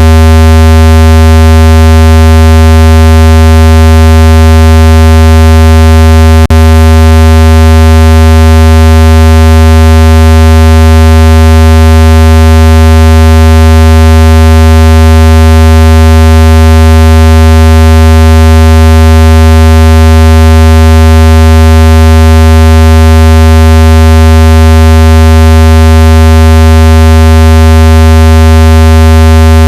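Synthesized speaker-cleaning tone: a steady, very loud low buzzing tone held unchanged, used to vibrate water and dust out of a phone speaker. A single brief click about six and a half seconds in.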